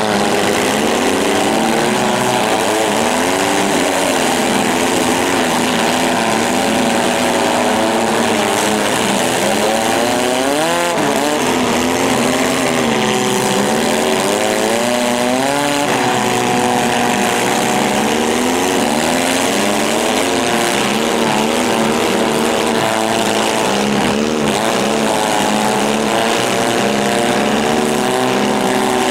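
Several demolition-derby compact cars' engines revving hard and falling back, many engine pitches rising and falling over one another without a break.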